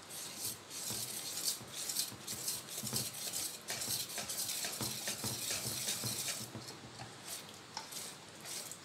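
A wire whisk beating semolina (suji) cake batter in a stainless steel bowl, with repeated scraping and light clinking of the wires against the metal. The batter is being thinned with added milk. The strokes ease off near the end.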